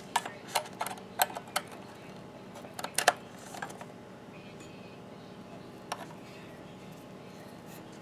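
Small plastic-and-metal clicks and knocks of USB 3.0 cable plugs being handled and pushed into the USB ports of a PCIe splitter card. There is a run of sharp clicks in the first second and a half, a short cluster about three seconds in, and one more near six seconds.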